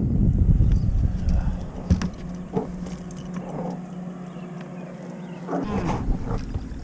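A steady low motor hum on a fishing boat. Wind rumbles on the microphone in the first second or so and again near the end, and a few light knocks come around two seconds in.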